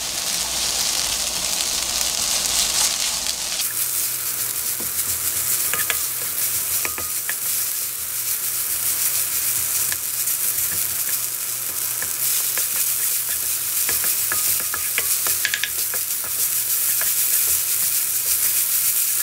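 Kimchi fried rice sizzling in a frying pan over a raised gas flame, stirred and scraped with a wooden spatula: a steady frying hiss with scattered light scraping clicks.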